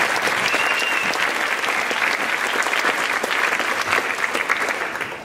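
Audience applauding, a dense run of many hands clapping that eases off near the end.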